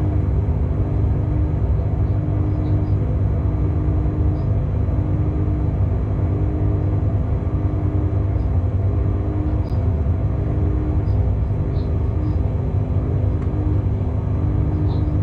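Locomotive running light along the track: a steady low rumble of wheels and running gear with a steady hum over it, and faint short high squeaks now and then.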